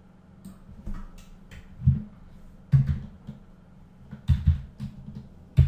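Computer keyboard keys and mouse buttons being pressed, including keyboard shortcut keystrokes: a dozen or so irregular dull clicks and knocks, with the loudest about two seconds in, about three seconds in, past four seconds and near the end.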